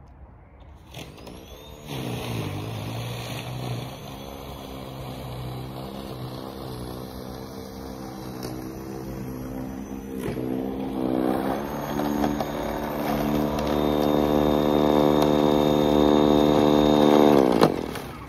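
Electric motor of a WORX 40V cordless 20-inch snowblower (WG471) spinning up about a second in, then running with a steady whine while it throws snow, growing louder as the machine comes closer. Near the end it is switched off and the whine falls away as the motor winds down.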